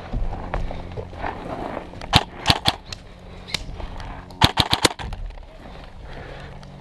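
Airsoft electric rifle (Umbrella Armory LVOA-S AEG) firing: a few single sharp shots about two seconds in, then a quick string of about six shots about four and a half seconds in.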